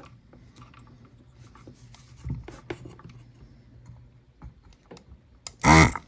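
Faint scattered clicks and taps of a plastic desoldering gun and circuit board being handled and positioned on a workbench. A short, much louder burst comes just before the end.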